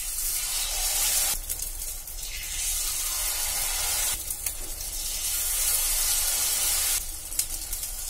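Hot oil in a steel kadai deep-frying cornflour-battered egg pieces for egg chilli, with a loud sizzle. The sizzle surges afresh several times as each new piece is dropped in.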